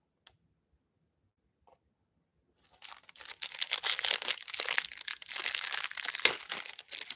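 Clear plastic wrapper of a Panini Prizm Draft Picks trading-card pack being torn open and crinkled by hand, a dense crackle starting about two and a half seconds in after near silence.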